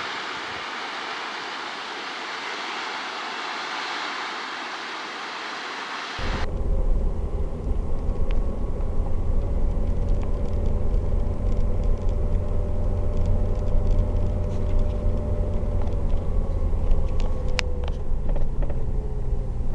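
A steady rushing noise for about six seconds, then an abrupt cut to car road noise heard from inside the cabin: a steady low rumble of tyres and engine while driving.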